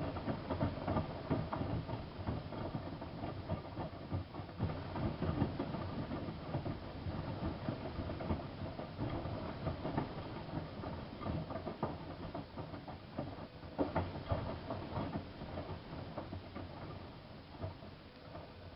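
Miele Softtronic W3657 front-loading washing machine in its wash phase, the drum turning and tumbling wet laundry: an irregular patter of knocks and splashes as the load drops through the water.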